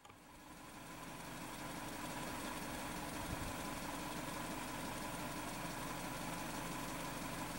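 An engine idling steadily, fading in over the first couple of seconds, with a constant hum under a steady rushing noise.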